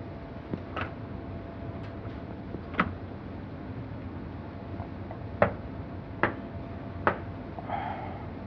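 Knocking on a wooden door: five single knocks spaced unevenly a second or two apart, over a steady low hum.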